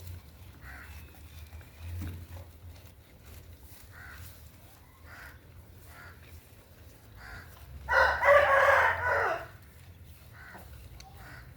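A rooster crows once, loudly, about eight seconds in, the call lasting about a second and a half, with fainter short calls before it.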